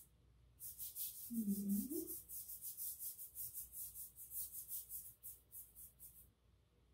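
Paintbrush scrubbing back and forth on wet watercolour paper, a quick run of short brushing strokes, about four a second. A brief low hum about a second and a half in.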